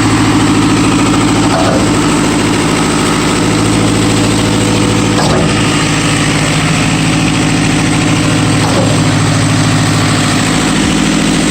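Diesel engines of a concrete mixer truck and concrete pump running steadily as concrete is fed into the pump, with a faint knock about every three and a half seconds.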